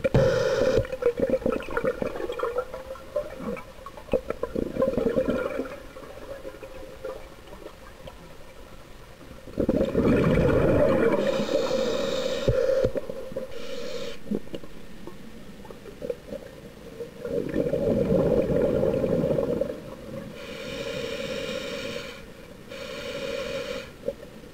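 Scuba regulator exhaust heard underwater: loud bubbling bursts of a diver's exhaled breath, one every several seconds, with quieter stretches between.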